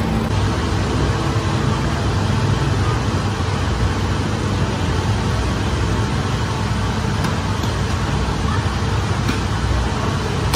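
Steady low drone of bakery machinery running, an even mechanical noise with no breaks.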